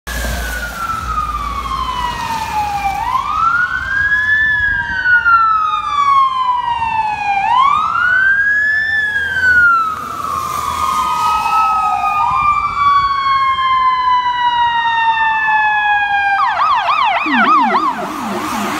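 Fire truck sirens responding: overlapping wails that each rise and then slowly fall in cycles of about four seconds. Near the end they switch to a fast yelp, joined by a low-pitched Howler tone that follows the yelp.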